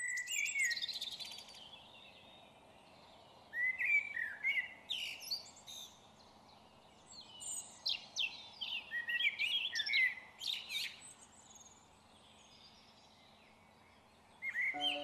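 Songbirds singing in about four bursts of quick chirps and warbling trills, with pauses between them, over faint steady background noise.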